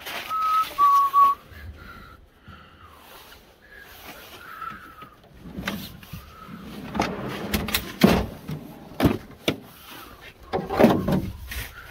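A few short whistled notes, stepping down in pitch, then clattering and sharp knocks as gear is handled and a metal grill case is pulled out of a storage space in the van.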